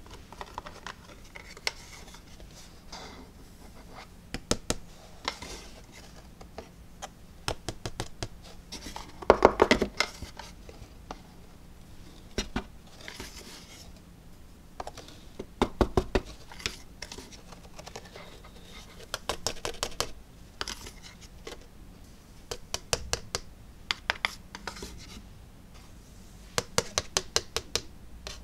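Small plastic spoon scraping and clicking in a clear plastic tub as white embossing powder is spooned over a stamped card, with scattered sharp clicks and a quick run of taps near the end.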